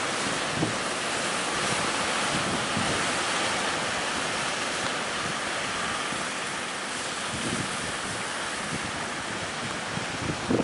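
Big ocean waves breaking and rushing in a steady wash of surf, with wind buffeting the microphone in irregular low thumps.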